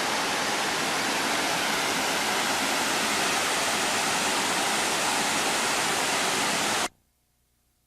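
Waterfall on the Bad River rushing steadily, a loud, even roar of falling water. It cuts off suddenly near the end.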